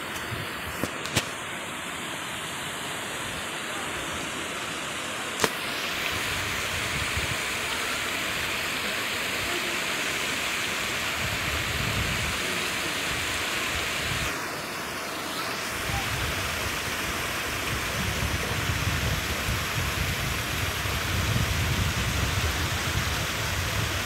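Small waterfall splashing into a rock pool: a steady rushing of falling water that grows a little louder. A few sharp clicks in the first six seconds, and a low rumble comes and goes in the second half.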